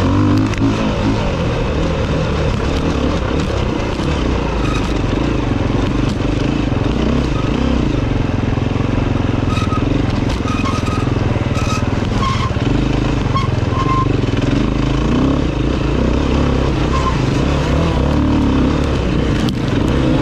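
Enduro dirt bike engine running hard as it is ridden over a dirt track, its revs rising and falling without a break, heard from on board the bike.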